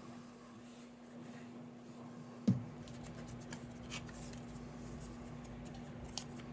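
Paper and cardstock being handled and pressed into place, with light rustles and ticks and one soft thump about two and a half seconds in. A steady low hum underneath.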